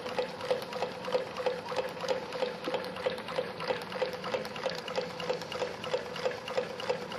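Homemade Stirling engine running, with a steady rhythmic pulse of about three strokes a second. Air hisses as it leaks past the power piston's double O-ring seal.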